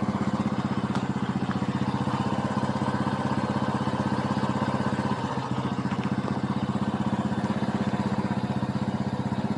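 Bajaj Boxer BM 125 X motorcycle's single-cylinder four-stroke engine idling with a steady, even pulse.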